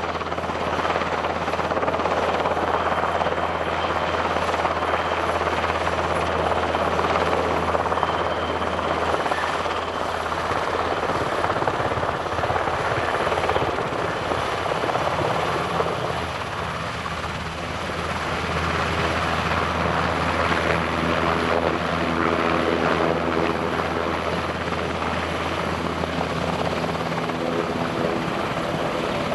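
Swedish Army NH90 twin-engine military transport helicopter hovering low: a steady beat of the main rotor with a dense rushing noise and a thin high turbine whine. A deeper humming tone joins in during the second half.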